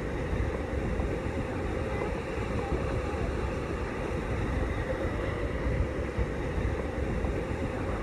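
Seljalandsfoss waterfall plunging into its pool close by, a steady, deep rushing of water heard through a phone in a waterproof case.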